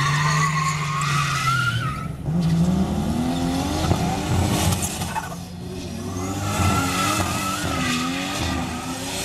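Car spinning donuts in a long burnout, tyres squealing and skidding while the engine revs rise and fall with the throttle. The revs drop away briefly about two seconds in and again around the middle before climbing back.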